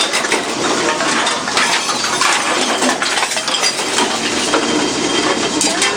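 Continuous clinking and clattering of glass bottles knocking together, many small clinks with no break.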